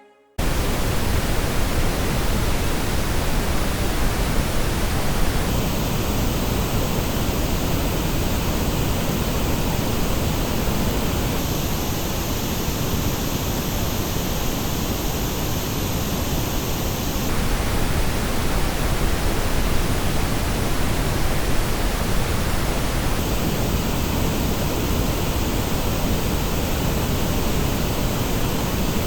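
Steady pink-noise test signal as reproduced by two headphones in turn, the HiFiMan Ananda and the HiFiMan Arya. Its treble colour switches abruptly about every six seconds between the two versions.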